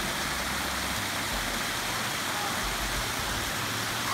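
Shallow creek water spilling over small rock ledges in low cascades: a steady rushing of water.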